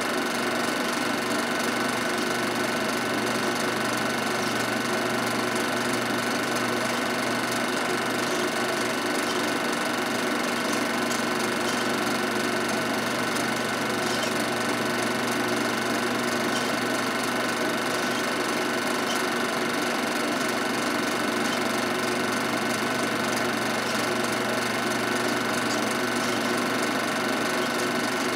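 Film projector running steadily: an even motor hum with the mechanical clatter of the film transport.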